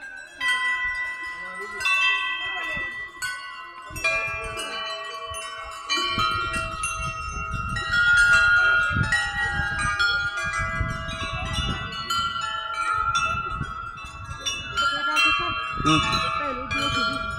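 Metal temple bells struck again and again at irregular intervals, their ringing tones overlapping. A low rumbling noise joins about six seconds in.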